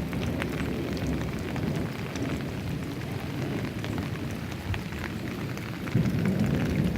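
Steady rain falling, with many scattered drop hits over a low rumble that swells about six seconds in.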